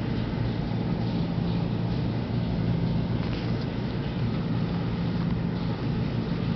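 Steady low mechanical hum with a constant hiss over it.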